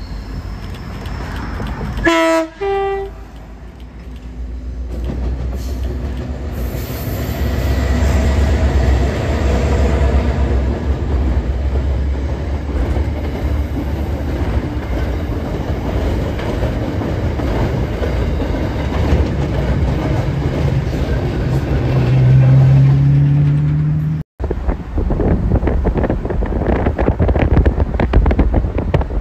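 Diesel-electric freight locomotives (Queensland Rail 2900 class) sound a short two-note horn blast about two seconds in, then their engines rumble steadily as the train of empty wagons passes close by. Near the end the sound cuts to wind and road noise inside a moving car.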